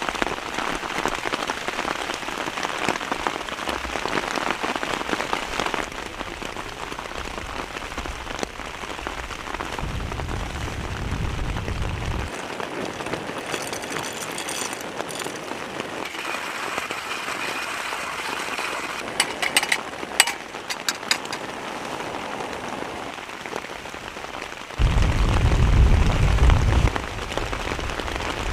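Heavy rain falling steadily. A low rumble comes in twice, about ten seconds in and again near the end, the second louder, and a short run of sharp taps sounds about two-thirds of the way through.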